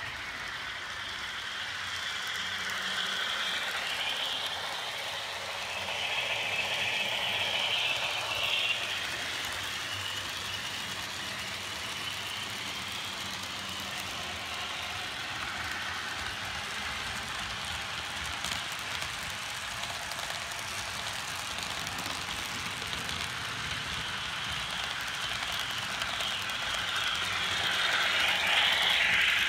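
HO scale model train cars rolling past on metal track, a steady rattling wheel-on-rail noise. It swells twice as cars pass close, loudest near the end as the locomotive goes by.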